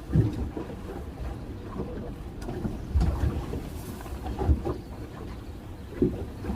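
Waves slapping against the hull of a small fishing boat in choppy water, with a steady low rumble and a few dull thuds.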